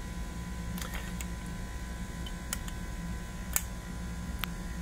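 A handful of small sharp clicks and taps as wire ends are handled and clamped in a bench vise, the sharpest about three and a half seconds in, over a steady low electrical hum.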